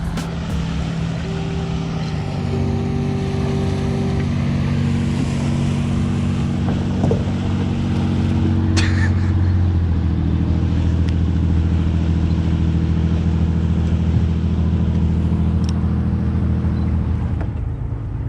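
Motorboat engine running steadily, its pitch stepping up a few times as the throttle changes, loudest in the second half. A sharp click about nine seconds in.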